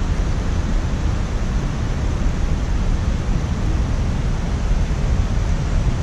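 Steady rushing noise of water pouring over river cascades, with a low, uneven rumble of wind on the microphone.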